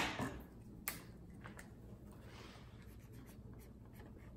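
A sharp click at the start and a smaller one about a second in, then the faint scratching of a Sharpie felt-tip marker writing on tape wrapped around a plastic spray bottle.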